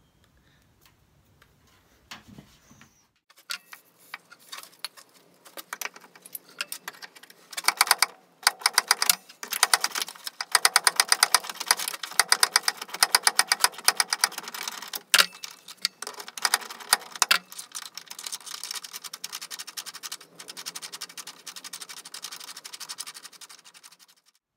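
Rapid runs of sharp clicks and rattling, sparse at first and then dense from about eight seconds in, stopping just before the end.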